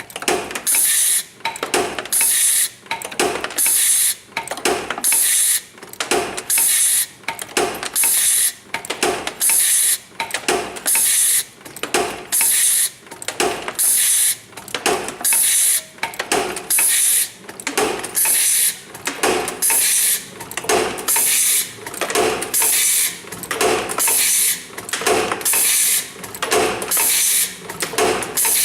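CNC-30T1 multi-slide former running in continuous cycles, about once a second, each stroke a burst of loud hissing with a mechanical clack.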